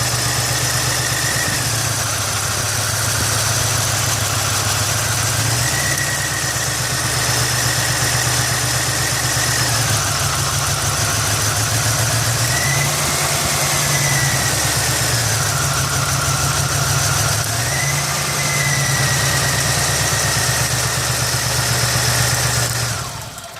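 1989 Buick Century's 3.3-litre V6 idling, its speed wandering up and down every few seconds, then shut off suddenly near the end.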